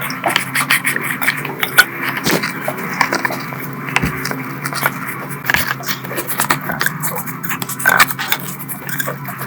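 Irregular scraping with many short clicks, like hand work on a part, over a steady low hum.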